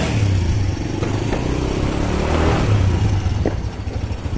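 Motorcycle engine running nearby, a steady low drone.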